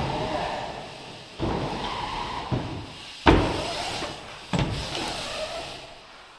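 A series of heavy thuds or slams, five in about six seconds, each one struck suddenly and then fading slowly.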